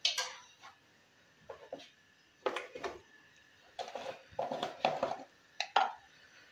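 Scattered clinks and knocks of kitchen utensils and containers being handled: a sharp one right at the start, a couple about two and a half seconds in, and a cluster from about four to six seconds in.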